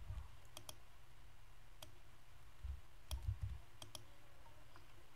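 Faint computer mouse and keyboard clicks, scattered and some in quick pairs, from code being selected, copied and pasted in an editor. There are a few dull low thumps among them.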